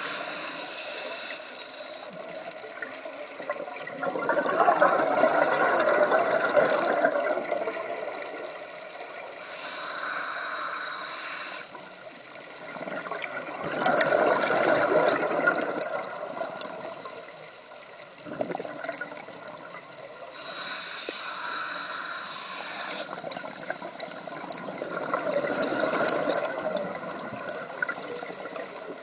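Scuba diver breathing through a regulator underwater: a short hiss on each inhale, then a longer burble of exhaled bubbles, three slow breaths about ten seconds apart.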